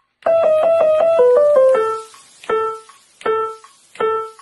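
Piano keys being played: a quick run of about a dozen notes stepping down in pitch, then three single notes of the same pitch struck slowly, about one every three-quarters of a second.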